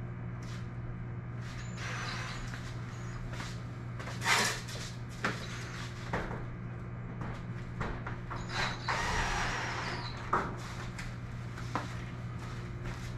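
Cordless drill driving self-tapping screws into an aluminium garage door in short runs, the longest about nine seconds in. Knocks and rattles come from the door panel, over a steady low hum.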